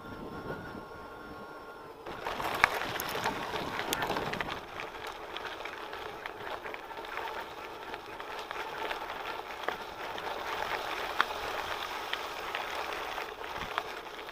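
Mountain bike tyres crunching and rolling over a loose gravel track, with scattered rattles and knocks from the bike. It begins about two seconds in, as the bike leaves smooth tarmac. Before that there is a quieter faint steady whine.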